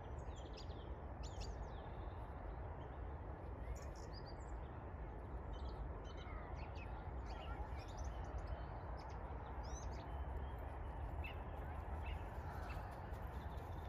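Wild birds chirping and calling, many short high notes scattered throughout, over a steady low outdoor rumble.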